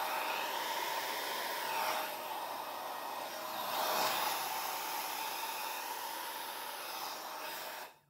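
Deliya handheld hair dryer with a small nozzle blowing a steady rush of air with a faint steady whine in it, switched off abruptly near the end.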